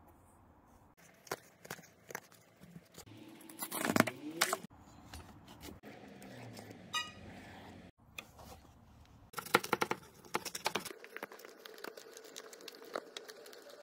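Hands working a hard gun case and its pick-and-pluck foam: scattered clicks, scrapes and rustling, with a brief squeak about seven seconds in. A quick run of tearing about nine and a half seconds in, as cut foam is pulled out of the case.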